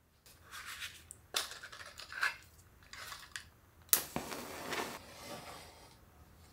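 A wooden match handled in its matchbox with a few scratching strokes, then struck sharply about four seconds in, followed by the hiss of the match head flaring.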